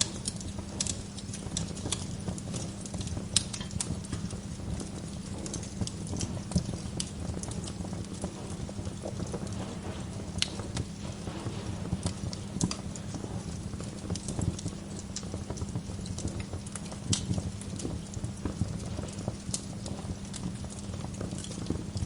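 Wood fire in a fireplace crackling, with irregular sharp pops over a steady low noise from the burning fire.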